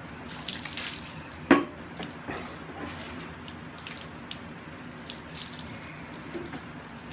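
Garden hose running, water spraying and splashing on a wet dog's coat as the soap is rinsed out. There are a few sharper splashes, and one sudden sharp sound about a second and a half in.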